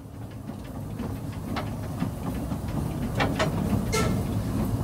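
Narrow-gauge steam locomotive running along the track, heard from its cab: a dense steady rumble with a few sharp metallic knocks from the wheels and rails, growing louder over the first few seconds.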